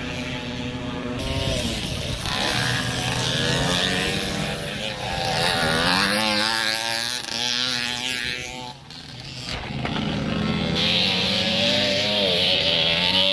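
Small motocross bike engines revving hard as riders go round a dirt track. The pitch climbs and drops again and again with throttle and gear changes, and it dips briefly about nine seconds in before rising once more.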